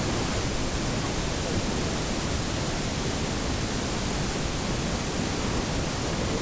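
Steady, even rushing noise with no distinct events, holding one level throughout.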